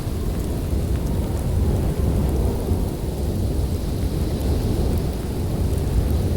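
Snowstorm wind: a steady low rumble with a fainter hiss above it and a few faint high ticks.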